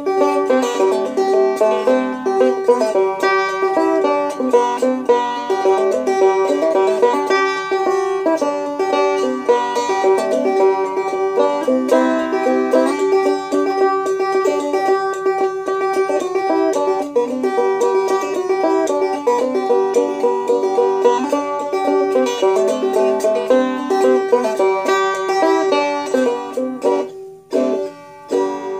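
Homemade cigar box banjo, built from a cigar box, a small salad bowl and a heat-shrunk plastic bottle, played clawhammer style: quick plucked melody notes over a recurring drone note. The tune winds down near the end, its last notes ringing out.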